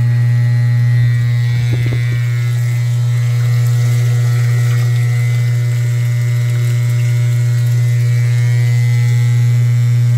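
Vibratory submersible pump (bomba sapo) running on test with a steady, loud electric buzz, its diaphragm vibrating at twice the mains frequency, while it pumps against a partly closed valve at raised pressure.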